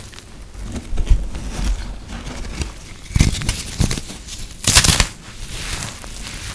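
Hands breaking and crushing brittle, puffed-up microwaved soap: a string of dry crunches and crackles, the longest and loudest one coming a little before five seconds in.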